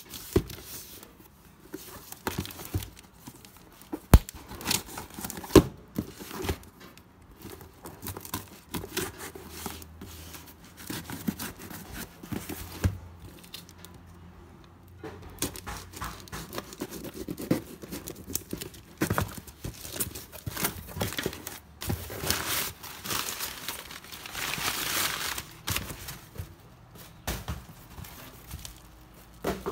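A kitchen knife slits the plastic wrapping and cardboard of a shipping box. There is ripping of tape and plastic, with scattered knocks and clicks as the box is handled, and a few seconds of steady ripping about three-quarters of the way through. Bubble wrap crinkles near the end.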